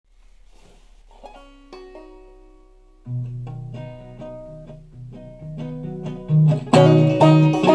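Clawhammer banjo in double C tuning opening the tune with a few single picked notes. About three seconds in, an overdubbed 1930s Abbott archtop guitar joins with low bass notes. Near the end the banjo's strummed strokes come in much louder, in a steady rhythm.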